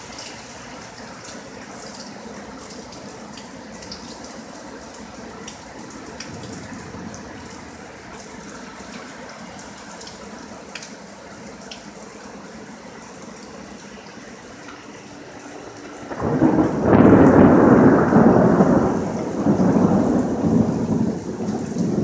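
Steady rain falling, with faint scattered drip ticks. About sixteen seconds in a loud thunderclap breaks in suddenly and rumbles on, rising and falling, for several seconds.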